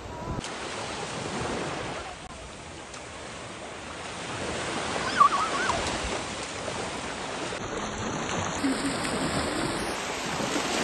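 Small sea waves breaking and washing on a sandy shore, with water splashing in the shallows. A brief high warbling cry stands out about five seconds in.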